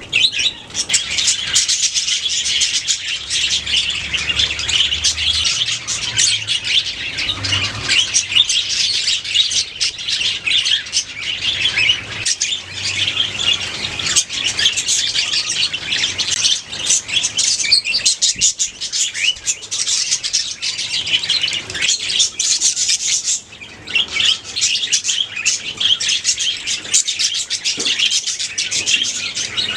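A colony of budgerigars chattering and chirping, many birds calling over each other in a continuous dense twittering, with a brief lull about two-thirds of the way through.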